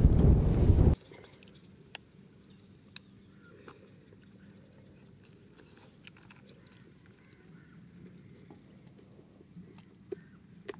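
A loud rushing noise for about the first second cuts off abruptly. After it an insect chirps steadily, a high pulse about twice a second, with a few faint clicks.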